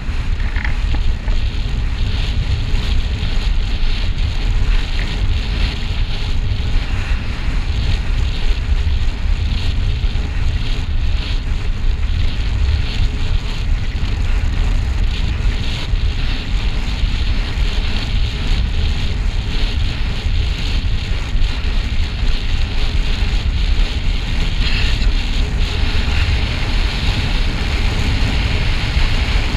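Wind noise on the microphone of a road bike descending at speed: a loud, steady low rumble with a hiss of rushing air over it.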